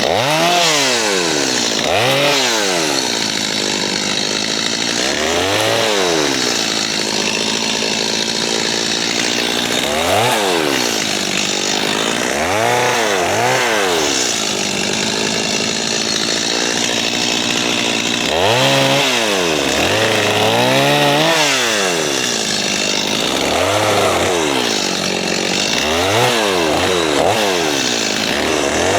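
Chainsaw revving up and dropping back again and again, about ten times, as it cuts the lower limbs off a cedar tree.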